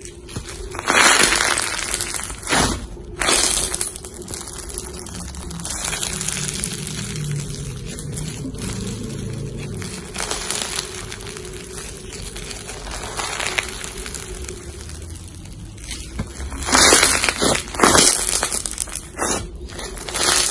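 Crunchy slime full of small blue plastic beads being stretched, squeezed and pressed by hand, crackling and crunching. The louder bursts of crunching come about a second in, around three seconds in, and again near the end.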